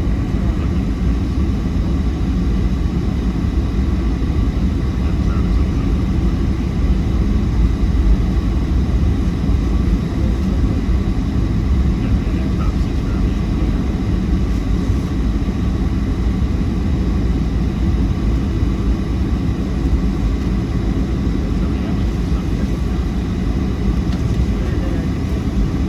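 Steady low rumble inside the passenger cabin of a Boeing 737-700, its CFM56 jet engines running, with a faint steady whine on top.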